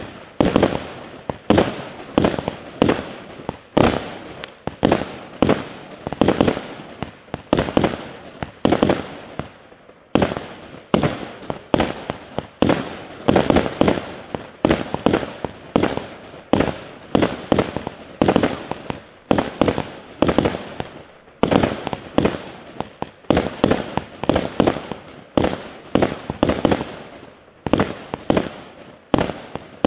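A 0.8-inch, 100-shot consumer fireworks cake firing a steady volley, about two shots a second. Each shot is a sharp report with a short trailing tail as the brocade crown and strobe stars burst.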